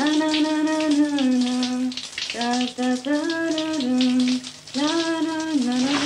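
A woman singing long held notes in three phrases while a shower runs, its spray a steady hiss under the voice.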